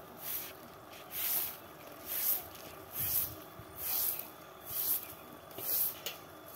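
Broom of dried mustard stalks sweeping a dry earthen yard: rhythmic swishing strokes, about one a second.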